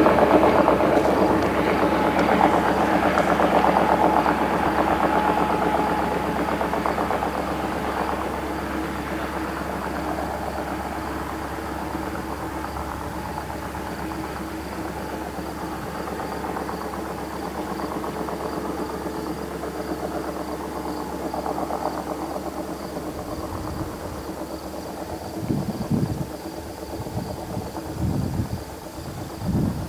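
A steady mechanical rumble with a hum, like a passing vehicle or train, loudest at the start and fading gradually over the first ten seconds or so. Insects chirp steadily and faintly throughout, and a few low, uneven rumbles come in near the end.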